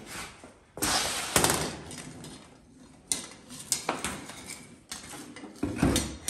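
Canvas tool bag rustling as a Hypertherm Powermax plasma cutter is lifted out, then its cable and torch lead knocking and clattering against the unit and the concrete floor, and a heavier low thump near the end as the unit is set down.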